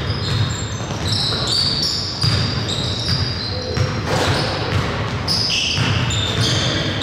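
Basketball game play in a gym: the ball bouncing on the court in repeated thuds, with many short high sneaker squeaks on the floor.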